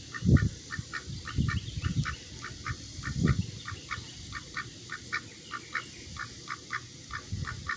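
Domestic duck quacking in a rapid, even series, about four short calls a second. A few low thumps sound alongside, the loudest about a third of a second in.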